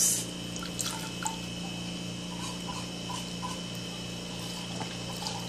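Milk pouring from a carton into a bowl of liquid cream mixture: a brief splash at the start, then a faint steady pour with a few small drips. A steady hum runs underneath.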